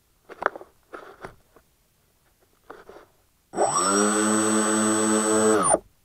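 Twin electric motors and propellers of a scratch-built RC plane, heard from its onboard camera. They spin up sharply about three and a half seconds in, run at a steady high whine for about two seconds, then cut off abruptly. Before that come a few brief knocks and rustles.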